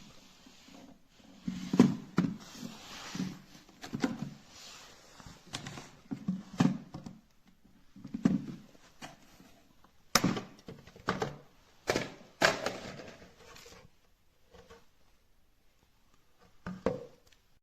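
Irregular knocks and thunks, a dozen or so over about thirteen seconds, some with a sharp click, then only a couple of faint ones near the end.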